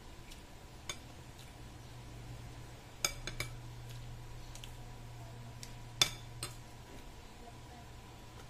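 Metal spoon and fork clinking against a ceramic bowl and plate while eating: a single clink about a second in, a quick run of three around three seconds in, and the loudest clink about six seconds in with one more just after. A steady low hum runs underneath.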